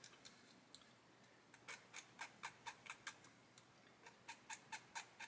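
Faint, quick scraping strokes on small plastic model tank track links, about four a second, as raised ejector pin marks are scraped down; they start a little under two seconds in, with a short pause midway.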